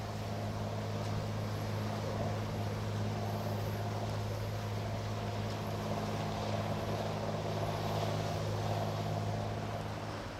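A vessel's engine running at steady speed: a low, even drone with several constant tones, over the wash of water and wind.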